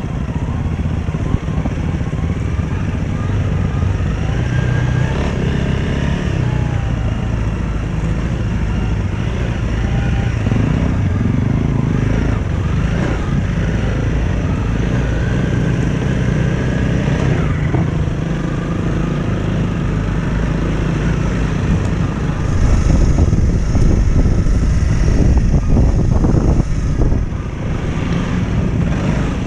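Motorcycle engine running while riding a rough dirt track, with wind noise on the helmet-mounted microphone. The engine's pitch rises and falls with the throttle, and it gets louder from about two-thirds of the way through.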